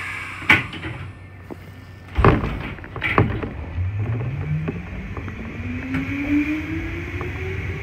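Kotoden Kotohira Line electric train starting away from a station stop. A hiss and a sharp click near the start are followed by two heavy clunks. From about four seconds in, the traction motors' whine rises steadily in pitch as the train gathers speed.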